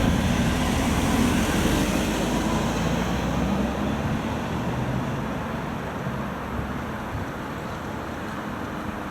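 Traffic noise from a passing vehicle: a steady rumble with a low hum that slowly fades.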